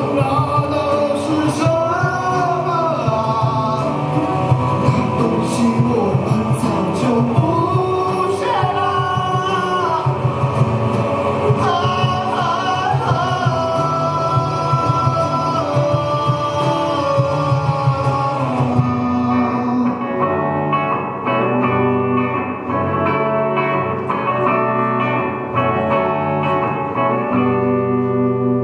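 Live band playing: a male voice sings over guitars and cajón, then about two-thirds of the way through the singing and percussion drop away, leaving guitars playing alone and ending on a held chord near the end.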